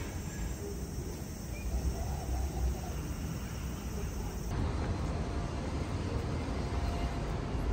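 Low, steady background rumble, with a sudden change in its sound about four and a half seconds in.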